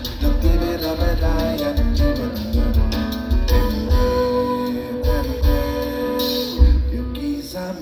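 Live band of grand piano, upright double bass, acoustic guitar and drum kit playing a bossa nova number on stage, recorded from the audience with a heavy, boomy low end.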